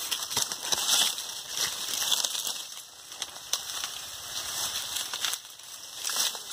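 Dry sugarcane leaves rustling and crackling as someone pushes through the cane and handles the stalks, in many short irregular crackles.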